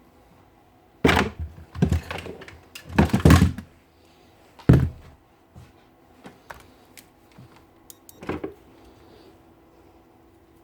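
Handling knocks and clatter of a power tool and hand tools on a bench: a run of sharp knocks over the first five seconds, one more about eight seconds in.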